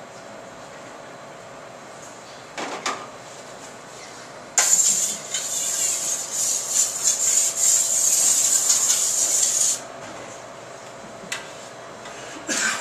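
Something flat being rubbed or scraped across a stainless steel worktable by hand, a steady hissing scrape lasting about five seconds from a little over four seconds in. A brief clatter of utensils comes about two and a half seconds in and again near the end.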